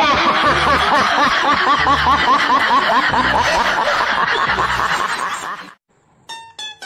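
Rapid, high-pitched laughter, short rising-and-falling laughs repeated several times a second over low regular pulses. It cuts off abruptly about six seconds in, and plucked-string music starts just before the end.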